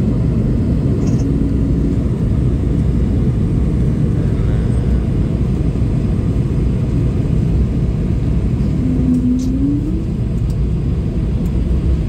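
Steady low rumble of jet airliner cabin noise heard from a window seat over the wing, the engines and rushing air making an even drone. A brief faint rising tone cuts in about nine seconds in.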